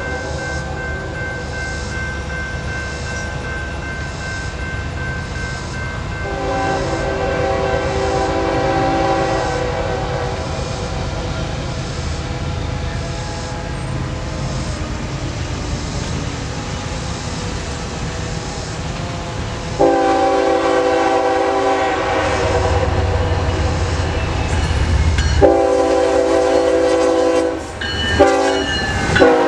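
Diesel freight train approaching and passing, engine rumble building. The locomotive's air horn sounds a long blast about six seconds in, then two long blasts and a short one from about twenty seconds in, as the lead locomotives go by.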